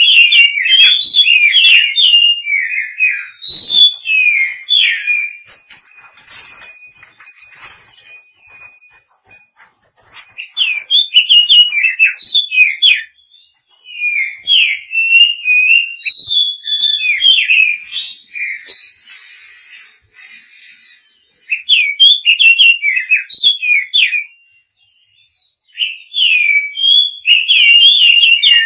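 Oriental magpie-robin song: phrases of rapid, varied whistled notes broken by short pauses. It is a lure song meant to rouse males and call in females.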